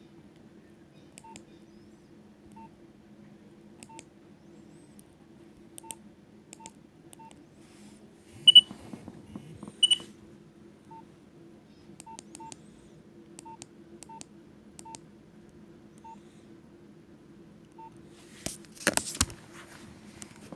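Nokia 2610 mobile phone keypad being pressed: about a dozen short key beeps with clicks at uneven intervals, and two louder, higher beeps about a second and a half apart near the middle. A brief clatter of handling near the end.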